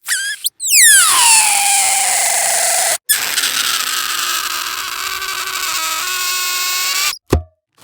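A string of cartoon sound effects from a sound library: a quick blip and a short glide, then a long tone that slides down from very high and levels off, then after a brief break a sustained pitched tone with a rich, buzzy edge, ending in a short low thump near the end.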